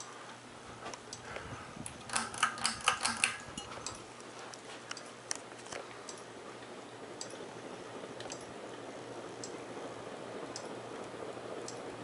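42-inch Encon Crusader Deluxe ceiling fan running, its motor humming steadily. A quick run of sharp clicks comes about two seconds in, with scattered single ticks after, and the rush of air from the blades grows steadily louder through the rest.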